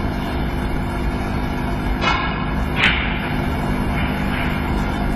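Hushed snooker-arena background: a steady broadcast hum and hiss while a player settles over a shot, with two small clicks, the second sharper, about halfway through.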